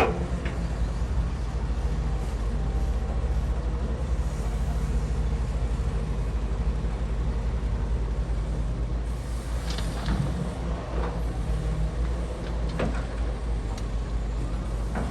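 Diesel engine of a Cat excavator running steadily while loading a dump truck, with a sharp knock at the start and a few lighter knocks and clanks about ten to thirteen seconds in.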